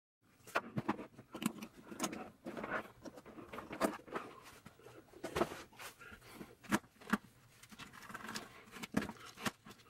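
Hands handling the hard plastic and leather parts of a vintage camera case and a small mirrorless camera: irregular clicks, light knocks and rustling as the pieces are turned over, set down and fitted together.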